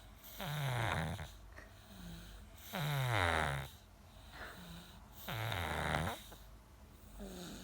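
A sleeping person snoring loudly: three long snores about two and a half seconds apart, each sliding down in pitch.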